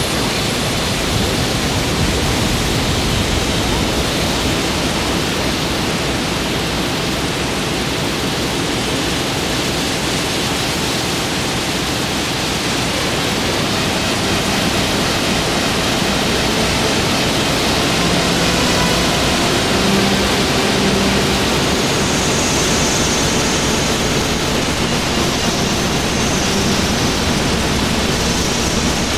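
Wind blowing hard across the microphone: a loud, steady rushing noise with a buffeting low rumble.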